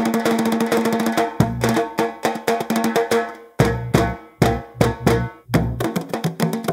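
Percussion-driven music: deep drum hits and sharp wood-block-like strikes in a fast, busy rhythm, with some held tones over it.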